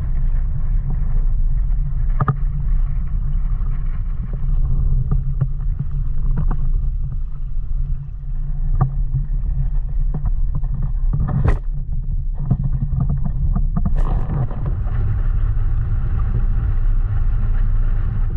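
Wind buffeting the microphone during wind-foiling on open water: a steady low rumble, broken by scattered sharp knocks or splashes, the loudest about eleven and fourteen seconds in.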